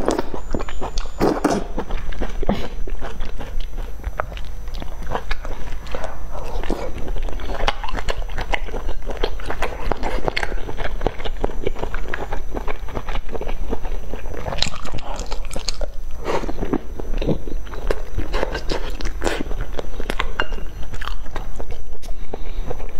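Close-miked eating of spicy hot-pot food: slurping in soft strands near the start, then steady wet chewing with many small mouth clicks and smacks. A steady low hum runs underneath.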